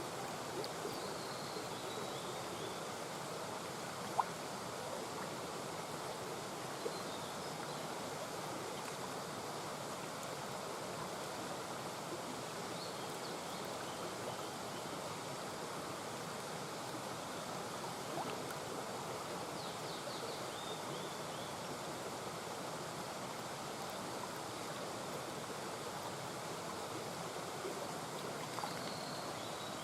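Mountain brook murmuring: a steady rush of water running over stones. Faint short high chirps come through a few times.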